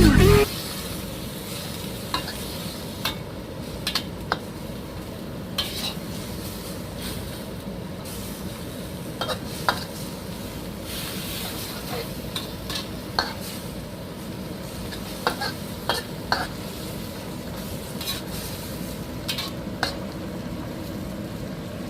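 Spicy pork bones stir-frying in a pan: a steady sizzle, with the spatula scraping and clicking against the pan at irregular moments. Music cuts off about half a second in.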